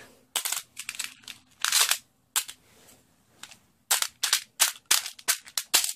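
Smooth pebbles clicking and clattering against each other and an aluminium foil tray as a hand moves them: scattered sharp clicks at first, then a quick run of clicks in the last two seconds.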